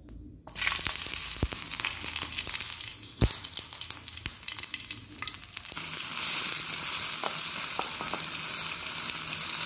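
Chopped onions and green chillies sizzling in hot oil in a steel pot, the sizzle starting suddenly about half a second in and growing brighter past the middle. Two sharp knocks cut through it, the louder about three seconds in.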